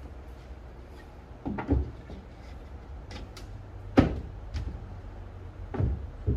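Knocks and thumps of a plywood lift basket with an aluminium frame and half-inch plywood floor and sides, as someone kneeling inside shifts about and handles its frame. There are several separate knocks, and the sharpest comes about four seconds in.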